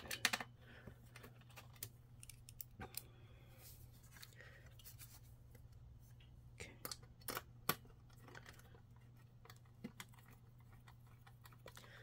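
Faint, scattered clicks and taps of a screwdriver working a screw in the metal chassis plate of an all-in-one PC while the plate is nudged into line, a few sharper clicks in the second half. A low steady hum runs underneath.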